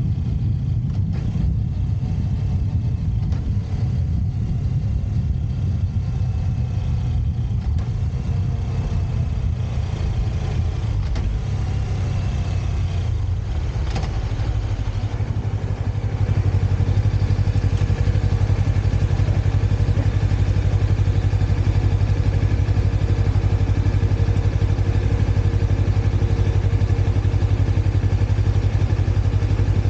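Motorcycle engine running with road noise during a ride. About halfway through it gets a little louder and settles into a steady low engine note.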